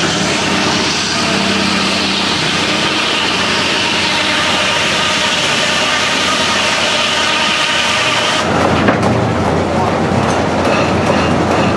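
Circular sawmill blade cutting lengthwise through a log on the carriage, a loud steady hiss that stops suddenly about eight and a half seconds in as the saw comes out of the cut. After that the sawmill carriage clatters along its rail track.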